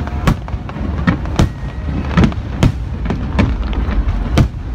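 Fireworks exploding in a rapid string: about nine sharp bangs, roughly two a second, over a continuous low rumble.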